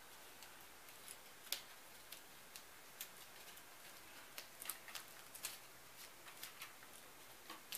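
Faint, irregular small clicks and crackles of black tape and thin wire being handled as tape is wrapped around a wire stem, the sharpest click about a second and a half in and a cluster of them in the middle.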